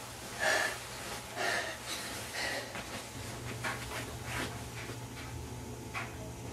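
A person breathing heavily: three louder breaths about a second apart, then fainter ones.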